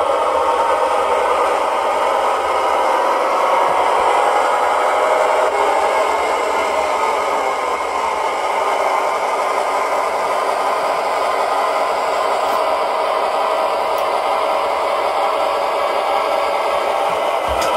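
Lenz V60 O-gauge model diesel locomotive running slowly along the layout track pulling a goods wagon: a steady whirring, rattling running noise.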